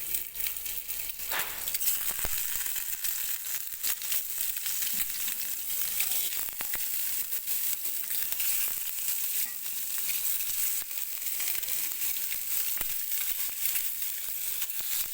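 Eggs frying in hot mustard oil in a frying pan: a steady sizzle with many small crackles.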